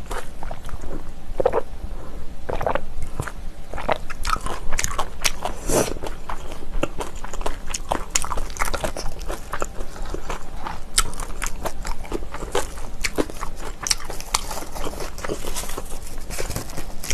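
Close-miked chewing and crunching of food, a continuous run of small crisp bites and wet mouth clicks.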